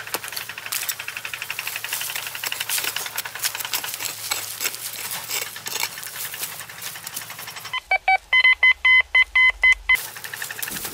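A hand digging tool chopping and scraping into dry, crumbly soil. About eight seconds in, a metal detector sounds a quick run of short, high beeps, signalling metal in the dug spot.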